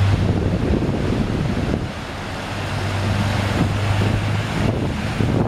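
Pickup truck ploughing through deep floodwater: rushing, splashing water from its bow wave over a steady low engine hum, with wind buffeting the microphone.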